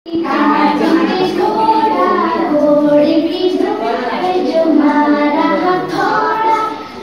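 Music with a high singing voice.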